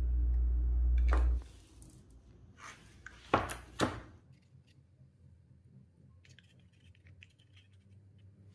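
A low steady hum that stops about a second in, then a few sharp knocks and clinks of kitchen utensils and dishes being handled, two of them louder, and faint light ticks after.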